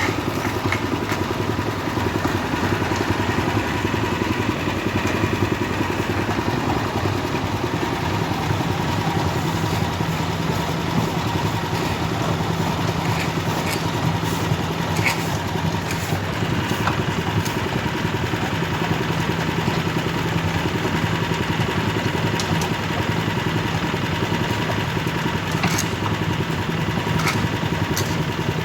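Engines of heavy asphalt-paving machinery running steadily, a constant hum with scattered light clicks and knocks.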